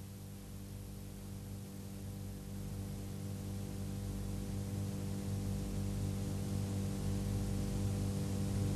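Steady low electrical mains hum with a faint hiss, slowly growing louder.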